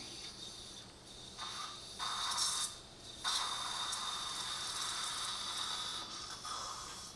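Dental implant contra-angle handpiece turning a tissue punch in the gum, a steady high-pitched motor whine with a hissy edge. It runs in spells, stopping briefly about three seconds in, then running steadily again.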